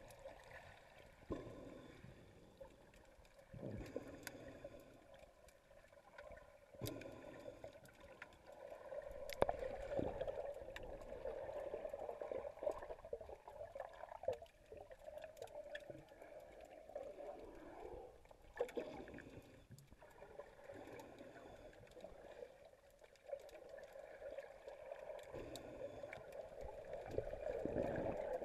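Water heard by an underwater camera inside its housing: a muffled, wavering swish and gurgle that swells and fades, with a few scattered sharp clicks.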